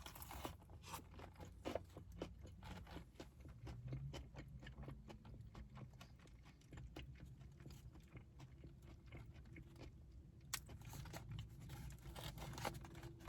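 Close chewing of a crispy fried chicken sandwich: many small, faint crunches.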